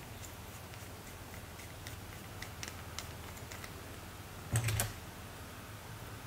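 Small plastic clicks from a twist-up eyeshadow stick being turned and handled, a quick irregular run of light ticks, then a louder brief clatter at about four and a half seconds.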